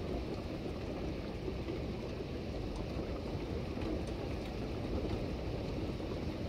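Steady rain falling on a wet street and garden, an even hiss with a low rumble underneath.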